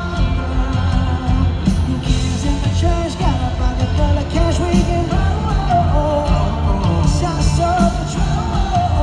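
Live pop band playing a song with singing over it, loud and continuous.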